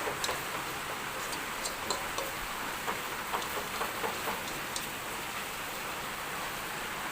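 Chicken feet in a thick soy, sugar and ketchup adobo sauce sizzling in a pan as the sauce cooks down and caramelizes, a steady hiss with scattered sharp pops, most of them in the first few seconds.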